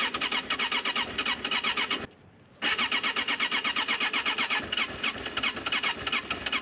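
Suzuki Katana motorcycle's electric starter cranking the engine in two runs of rapid, even chugging, broken by a short pause about two seconds in; the engine does not catch. It is a hard morning start: the owner says it floods if it doesn't fire immediately and suspects it needs new spark plugs.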